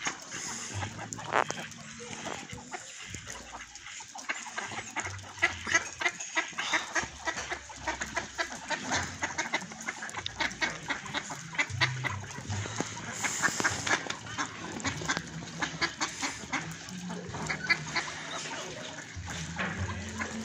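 A flock of mallard ducks quacking and chattering as they feed, with many short, overlapping calls.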